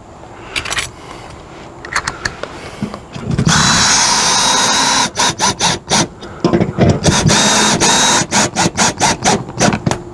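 Cordless power driver driving a lag bolt to fasten an awning arm. It runs steadily with a whine for a second or two about three and a half seconds in, then in many short trigger bursts as the bolt is snugged down.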